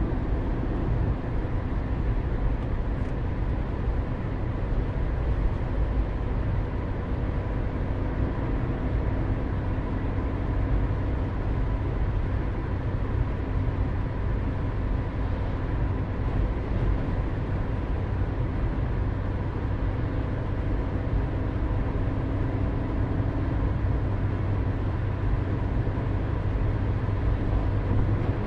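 Steady road and engine noise of a car moving slowly in traffic, heard inside its cabin: an even low rumble with a faint steady hum, no sudden sounds.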